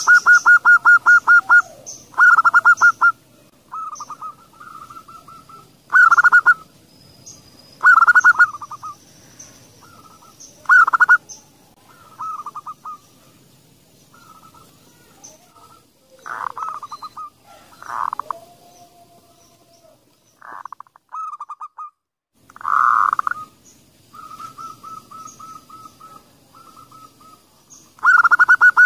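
Zebra doves (perkutut) cooing: short bursts of rapid staccato notes, one burst every couple of seconds, some loud and some softer.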